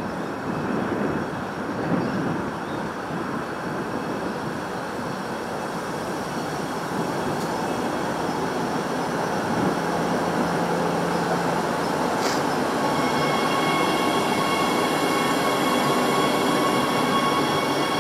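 Electric multiple-unit train pulling into the platform and rolling slowly past, its rumble slowly growing louder. About two-thirds through, a sharp click is followed by a steady high-pitched squeal at several pitches.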